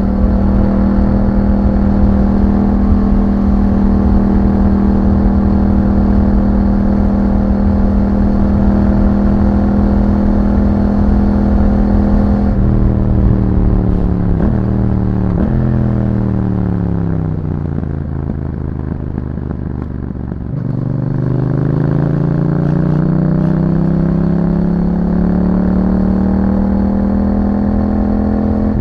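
2021 Yamaha MT-07's 689 cc parallel-twin engine through an Akrapovic exhaust, running at steady revs for about twelve seconds. Then the throttle closes and the pitch falls, with two brief gear-change breaks, before the throttle opens about twenty seconds in and the revs climb steadily under acceleration.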